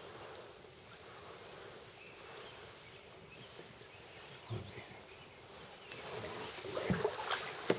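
Canoe drifting quietly under a bridge: faint water and outdoor ambience, a single low thump about halfway through, then knocks and splashes building up near the end as paddling resumes.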